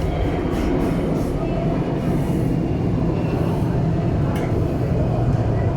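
Jet aircraft engines running with a steady, loud roar.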